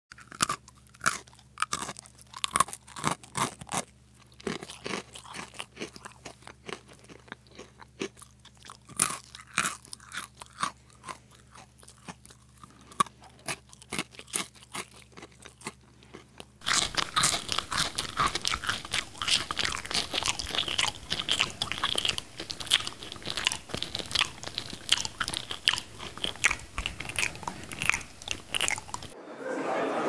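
Crisp cookies being bitten and chewed: scattered sharp crunches, over a faint low hum, then from about halfway through much denser, louder, continuous crunching of a mouthful.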